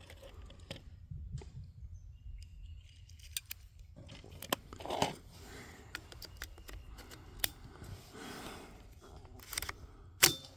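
Scattered small clicks and rustling from handling a rifle and gear at a shooting bench, with a low rumble underneath; the clicks are loudest about five seconds in and near the end. No gunshot.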